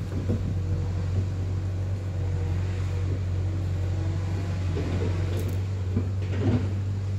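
A steady low mechanical hum, like a motor running, with a few faint short knocks, the clearest near the end.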